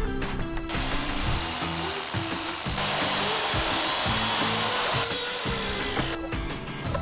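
Electric miter saw running and cutting through a square plastic downspout pipe: a steady high whine with hissing cutting noise, louder in the middle of the cut, stopping after about five seconds. Background music underneath.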